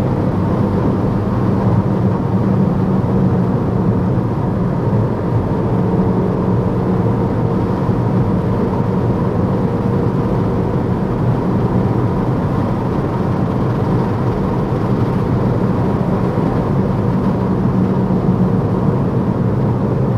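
Peugeot 308 GTi's turbocharged four-cylinder engine running steadily at a constant high road speed, its drone holding an even pitch over a steady rush of road noise.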